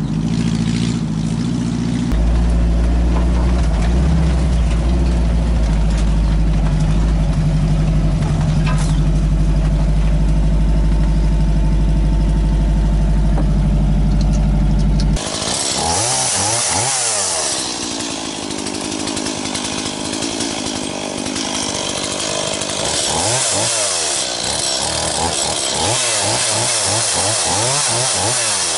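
An off-road van's engine running steadily as it drives along a forest track, heard from inside the cab. About halfway through it changes abruptly to a gasoline chainsaw cutting fallen branches, its pitch rising and falling over and over as it revs into each cut.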